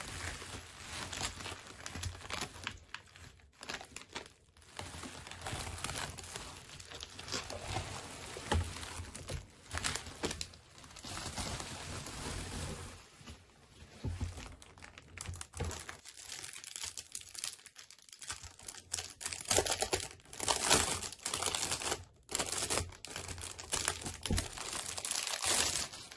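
Bubble wrap and clear plastic packaging crinkling and rustling in the hands as a keyboard and a tablet case are unwrapped. Irregular crackles run throughout and are loudest in the last third.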